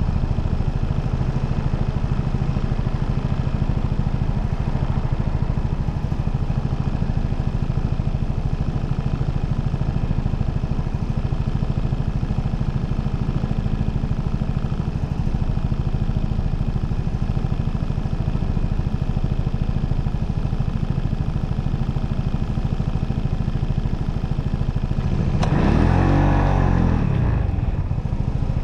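A motorcycle engine running steadily while riding, heard from on the bike. Near the end a louder swell of engine sound with a bending pitch lasts about two seconds.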